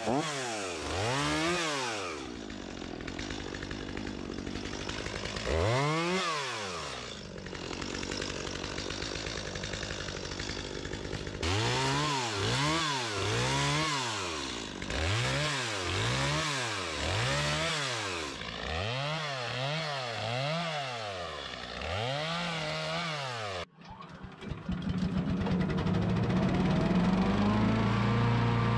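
Gas chainsaw revving up and dropping back over and over, at times about once a second, as it cuts through the branches of a felled tree. Near the end it cuts off abruptly and a wood chipper's small gas engine runs steadily.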